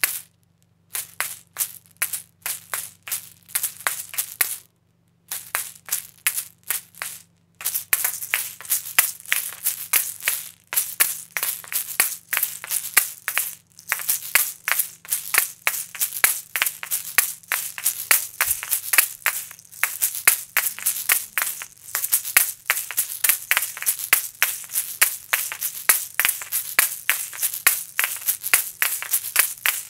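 Asalato (kashaka) shakers: two small seed-filled shells on a cord, swung and flicked so they rattle and clack against each other. Short groups of strokes with pauses at first, then from about a quarter of the way in a fast, unbroken rhythm.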